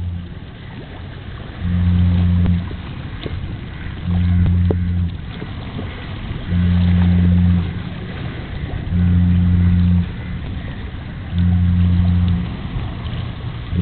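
A loud low hum that switches on and off at a regular pace, about a second on every two and a half seconds, over a steady background hiss.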